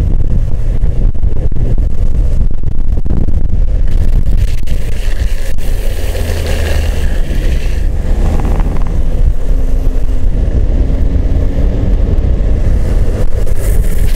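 Heavy wind buffeting the microphone at speed over a steady low road rumble, loud throughout.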